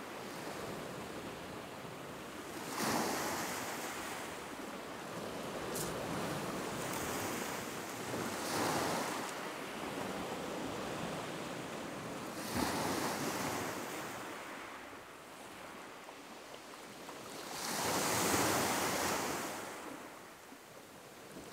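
Small waves breaking and washing back over a shingle beach, the surf swelling up four times, a few seconds apart, over a steady hiss.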